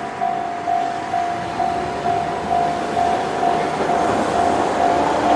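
Japanese level-crossing warning bell ringing steadily at about two strokes a second, over the running noise of a Keihan 600-series two-car train crossing a steel girder bridge.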